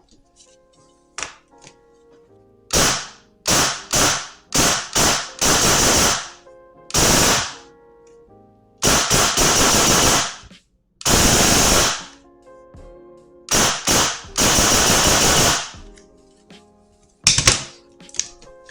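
VFC MCX airsoft electric gun with a brushless motor and short-stroked high-speed gearset firing in bursts: a few single clicks, then a string of short bursts and several longer full-auto bursts of about a second each, each cutting off sharply at trigger release. The gearbox is being test-cycled after the build, before a magazine goes in.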